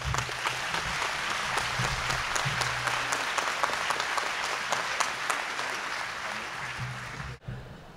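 Large audience applauding, a dense steady clapping that dies down near the end.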